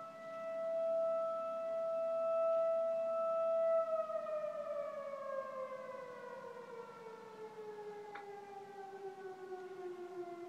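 Fire siren holding one steady pitch, then from about four seconds in winding down in a long, slow falling glide.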